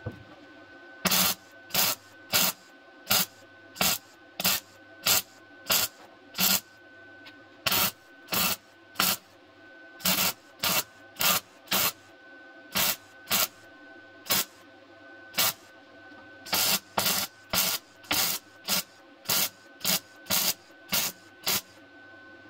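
Welder laying a rapid string of short tack welds into car-body sheet metal: about thirty brief crackling bursts, each under half a second, roughly one every two-thirds of a second, with short pauses between runs.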